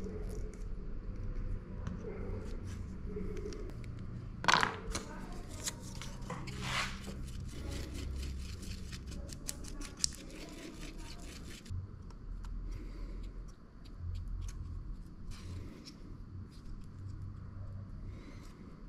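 Wooden stir stick scraping and tapping as two-part epoxy glue is mixed on a wooden board and then spread onto a machete's steel tang. There is a sharp knock about four and a half seconds in, the strokes thin out after about twelve seconds, and a low steady hum runs underneath.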